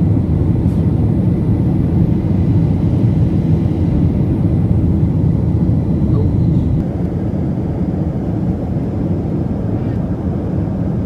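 Airliner cabin noise: the jet engines and rushing air heard from inside the cabin as a loud, steady low rumble that drops slightly about seven seconds in.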